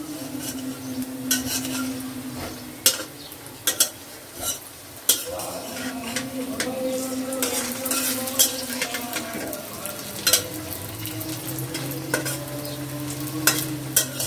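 Radish and carrot pakoras sizzling as they deep-fry in hot oil in an iron kadai, with a metal spatula scraping and clicking against the pan again and again as they are turned.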